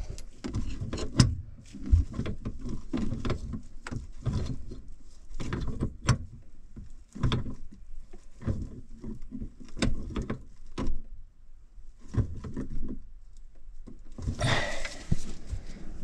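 Irregular knocks, clicks and rubbing from hands working on PVC drain pipes and braided supply hoses under a kitchen sink, with a longer scraping rustle near the end.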